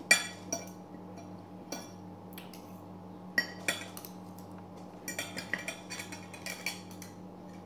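Metal fork and spoon clinking and scraping against a ceramic plate while eating, in short sharp clinks at irregular intervals with a quick flurry of them about five to seven seconds in. A steady low hum runs underneath.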